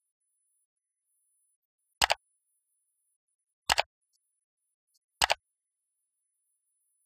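Three sharp mouse clicks, each a quick press-and-release double click, about a second and a half apart: the click sound effect of an on-screen subscribe-button animation.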